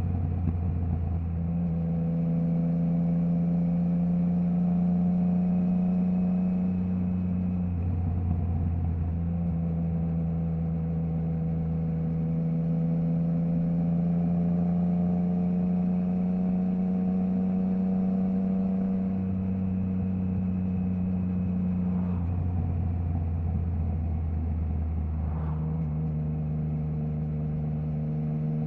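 Triumph Trident 660's inline three-cylinder engine running through a Zard stainless full exhaust with the baffle removed, heard from the rider's position on the move. The revs hold fairly steady, with the pitch stepping to a new level a few times.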